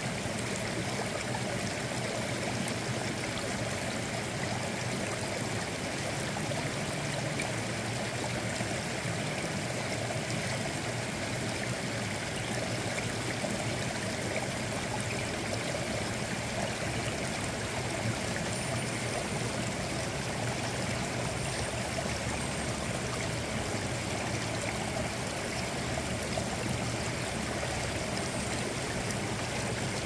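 Shallow mountain stream running steadily over and between boulders, water rushing and splashing through the rocks.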